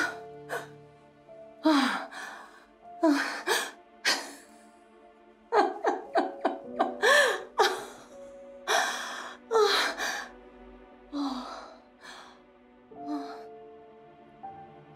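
A woman's repeated short, breathy gasps and exclamations of delight over a soft, sustained film score.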